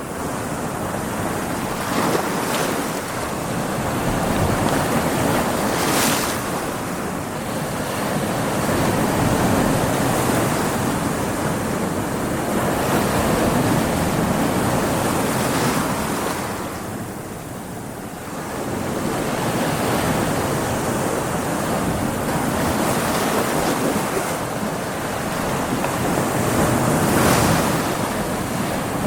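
Stormy sea: heavy surf and wind, a continuous roar of water that swells and eases as waves break, with stronger surges every few seconds and a brief lull just past the middle.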